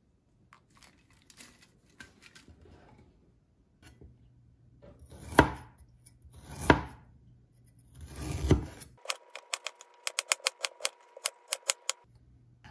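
Chef's knife chopping fresh ginger on a wooden cutting board. First come three heavy chops a second or so apart, then a quick even run of lighter slicing taps at about five a second.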